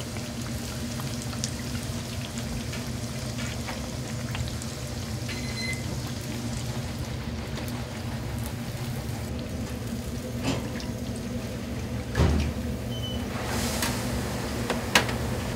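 Hot oil bubbling and sizzling around a large breaded pork cutlet in a deep fryer, over a steady low hum. A knock about twelve seconds in and a sharp click near the end come from metal tongs and the wire draining rack as the cutlet is lifted out.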